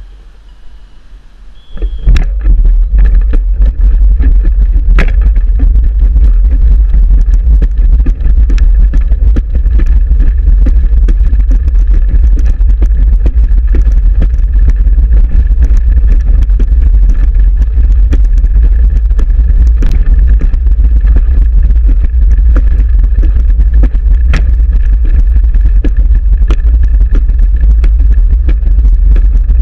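Racing wheelchair rolling fast on a track, heard from a camera mounted on its frame: heavy wind rumble on the microphone with rattles and clicks from the chair. It starts loud about two seconds in, after a quieter moment with a short high beep.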